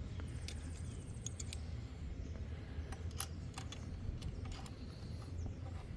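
Light metallic clicks and taps as a small combination wrench, a steel nut and screw are handled against the aluminium seat bracket while the nut is set in place, a cluster of them in the first second or so and two more about three seconds in, over a steady low rumble.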